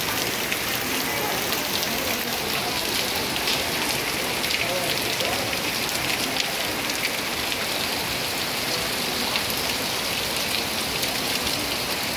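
Heavy rain pouring onto a wet, puddled paved street: a steady hiss, thick with the patter of drops splashing into standing water.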